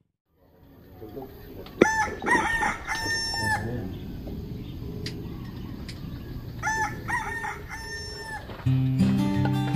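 A rooster crowing twice, each crow under two seconds long and about five seconds apart. Music comes in near the end.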